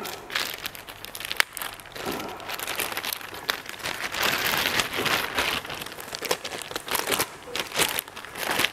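Clear plastic packaging bag crinkling and rustling as it is handled and pulled off an electronic device, with a few sharp crackles.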